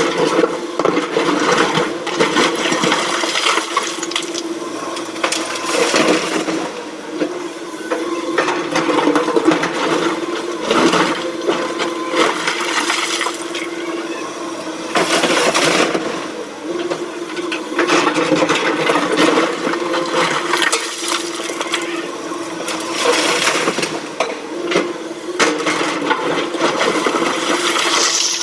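SANY SY225 excavator working with its engine running at a steady hum, while bucket loads are dumped into a BharatBenz tipper truck's body with repeated clattering and crashing.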